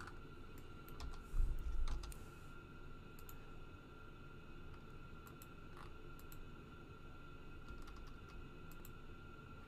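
Scattered clicks of a computer mouse and keyboard keys being pressed, a dozen or so short ticks spread irregularly. About a second in there is a louder low thump, and a faint steady high-pitched hum runs underneath.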